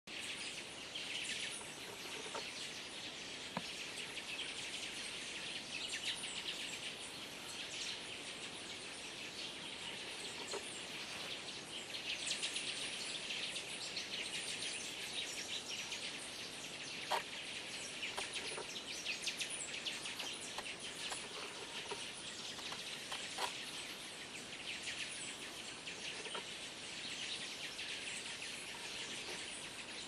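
A dense chorus of many small birds calling at once, a continuous high twittering chatter made of countless short overlapping chirps, with an occasional sharp click.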